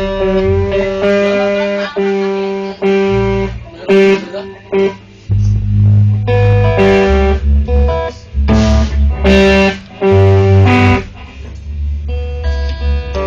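Electric guitars played through amplifiers: chords and riffs in short phrases that stop and start, with low bass notes under them.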